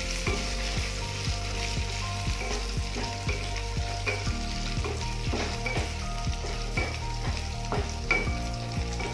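Cashews, raisins and bay leaves frying in ghee in a frying pan, sizzling steadily, while a wooden spatula stirs them and taps against the pan about twice a second.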